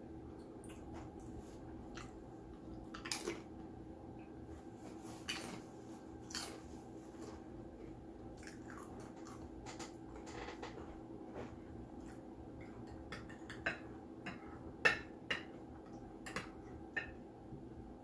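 A person eating close to the microphone: quiet chewing with scattered wet mouth clicks and smacks, over a faint steady hum.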